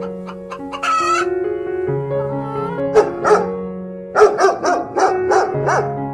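Background music with a dog yipping and barking in a quick run of short calls from about three seconds in, the loudest sound here. A brief hen squawk comes about a second in.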